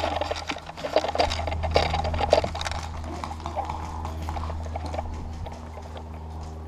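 Footsteps on dry dirt with gear rattling and knocking, thickest in the first few seconds and thinning out, over a steady low hum.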